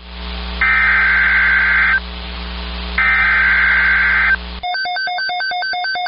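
NOAA Weather Radio SAME header data bursts over receiver hiss and hum: two harsh warbling buzzes, each about a second and a half long and a second apart, encoding a severe thunderstorm watch. Near the end the hiss cuts off and a fast, evenly pulsing electronic beeping with a steady beat starts.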